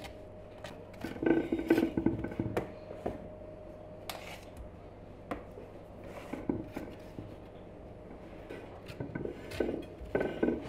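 Kitchen utensils and dishes clinking, knocking and scraping in irregular bursts, busiest about one to two seconds in and again near the end, over a faint steady hum.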